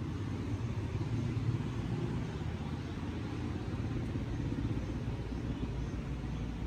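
Steady low outdoor rumble with no distinct events, the kind made by wind on a phone microphone or by distant traffic.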